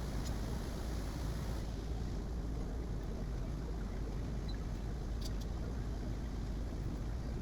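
Bambu Lab A1 3D printer running: a steady whirring noise with a low rumble, its hiss easing slightly about a second and a half in, and a faint click about five seconds in.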